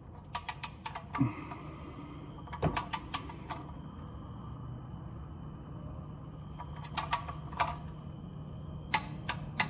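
Ratcheting torque wrench with a 14 mm socket clicking in four short runs as the oil drain plug is tightened, the head ratcheting back between strokes, over a faint steady hum.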